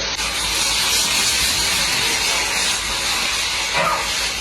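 Steady hissing noise, strongest in the upper range, with a brief faint gliding sound near the end.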